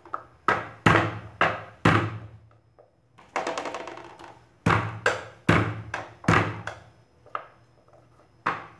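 Flat of a kitchen knife smacked down on galangal and ginger on a wooden cutting board, bruising the roots: about a dozen sharp thuds in uneven groups.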